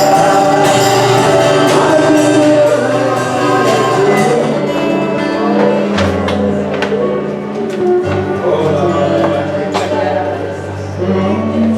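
Live worship band playing a slow song in a hall, with held chords, a moving bass line and occasional drum and cymbal hits, and voices singing along.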